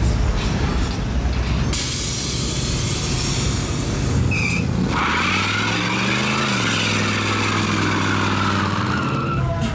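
A loud hiss for a couple of seconds, then a lowered pickup truck's engine revving up and held high in a burnout, its spinning rear tyre squealing over the engine, the squeal rising and falling in pitch.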